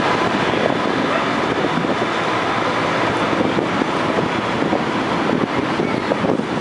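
Farm tractor engines running, a steady dense drone with no pauses.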